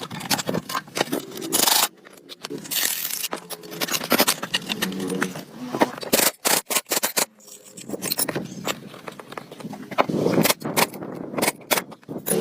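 Irregular scraping and clinking of metal parts being worked by hand, with many short sharp strokes and uneven gaps.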